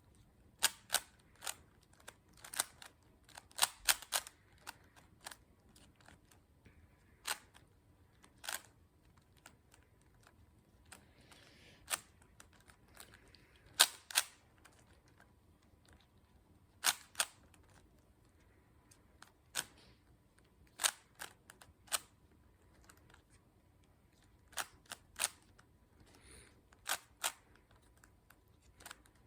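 Plastic Rubik's cube being twisted layer by layer: sharp clicks, singly and in quick clusters of two to four, with quiet gaps between turns.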